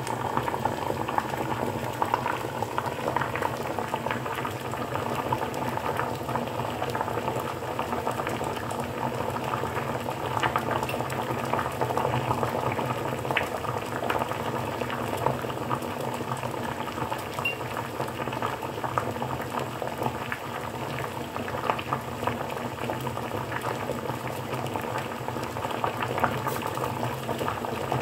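Water boiling hard in a pot of eggs on an electric cooker's glowing ring: a steady bubbling with many small crackling pops.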